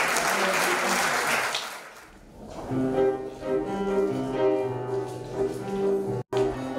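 Audience applause dying away, then after a short lull a jazz piece starts on piano and double bass about three seconds in. The sound cuts out for a moment near the end.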